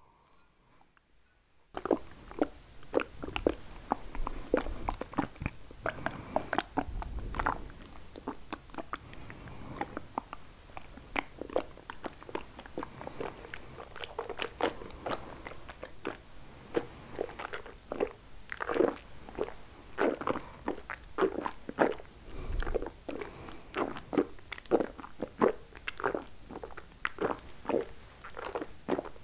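Close-miked ASMR mouth sounds: a rapid, irregular stream of wet clicks, smacks and tongue pops, starting about two seconds in after near silence.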